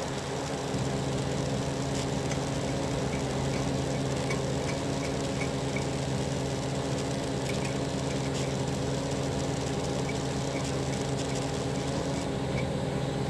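A steady machine hum with several fixed pitches, unchanging throughout, with faint light ticks repeating higher up.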